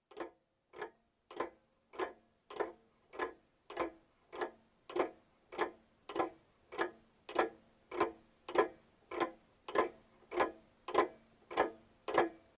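Steady, even ticking, a little under two ticks a second, growing louder over the first couple of seconds and then holding level.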